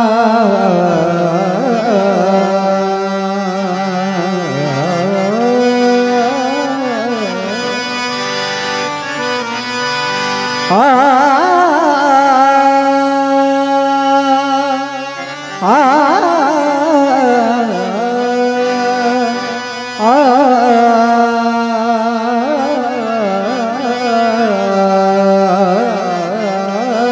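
Harmonium playing held notes under a singer's wordless, wavering vocal opening of a Marathi bhajan, with loud new phrases sliding in about eleven, sixteen and twenty seconds in.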